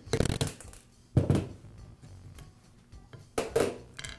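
Sharp metallic taps on a steel pin punch driving a roll pin out of a nail gun's plastic trigger, a few in the first second or so. Near the end come a couple of lighter clinks of the loose pin and punch against the steel bench.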